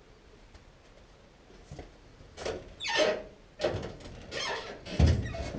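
A series of irregular scrapes, rattles and squeaks starting about two seconds in, ending with a shop's glass entrance door being opened, which is the loudest sound, near the end.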